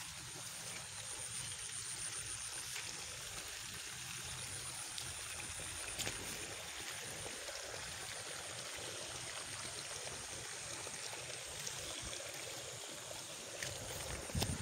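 Water trickling and running in flooded rice paddies, with a steady high-pitched buzz over it and a few short knocks near the end.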